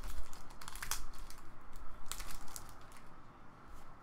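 A trading card pack's wrapper crinkling and tearing as it is opened and the hockey cards are pulled out, in several short rustling bursts.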